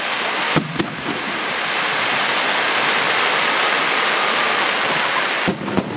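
Firework display: sharp shell bursts twice about half a second in and twice more near the end, with a loud, steady hiss in between.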